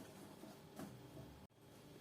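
Near silence: faint room tone, with a soft faint click a little under a second in.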